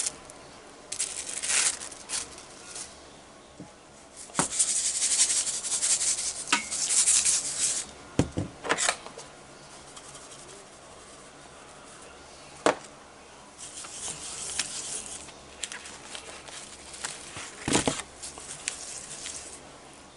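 Salt and pepper sprinkled onto a beef roast from their containers, in four bursts of rattling hiss, with a few sharp clicks between them as the containers and meat are handled.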